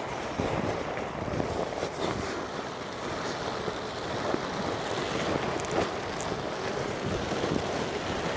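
Steady rain falling, an even hiss with scattered drop ticks, and some wind on the microphone.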